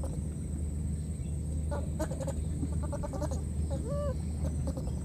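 A few short pitched animal calls over a steady low hum: quick notes about two and three seconds in, then a single call that rises and falls about four seconds in.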